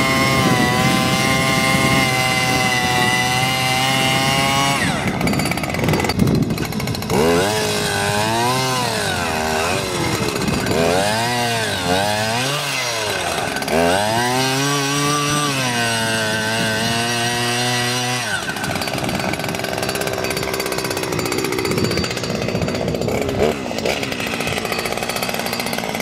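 Two-stroke engine of a handheld petrol earth auger running fast while drilling a planting hole in soil. About seven seconds in it begins revving up and down again and again as the throttle is worked, and after about eighteen seconds it settles into a rougher, steadier sound.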